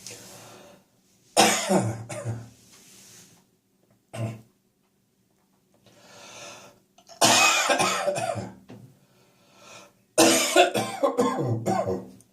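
Person coughing from catarrh. There is one loud cough just over a second in and a short one near four seconds. Two long coughing fits follow, from about seven seconds and from about ten seconds, with breaths drawn in between them.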